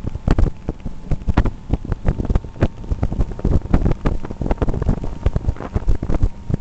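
Wind buffeting the microphone of a moving motorboat in irregular gusting thumps, with the boat's motor humming steadily underneath.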